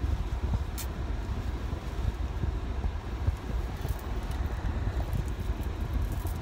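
Steady low rumble inside a car's cabin. A brief click a little under a second in and a few small clicks and rubs of the phone being handled between about four and six seconds.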